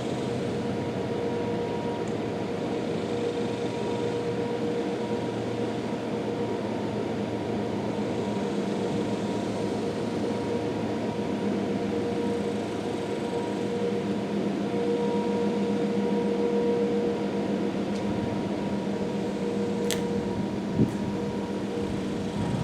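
Distant Sentry outdoor warning siren holding a steady tone that slowly swells and fades. A brief click is heard near the end.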